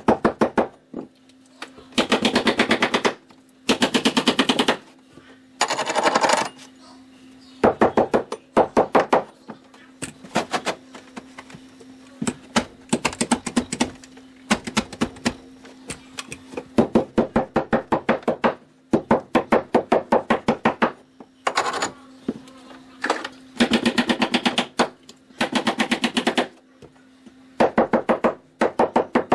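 Staple gun firing carpet staples into the stair steps in rapid bursts of sharp clicks, several a second, burst after burst, with a steady low hum underneath.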